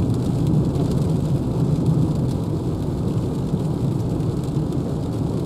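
Steady road and tyre noise of a Renault Zoe electric car driving on a wet road in the rain, heard from inside the cabin as an even low rumble with hiss.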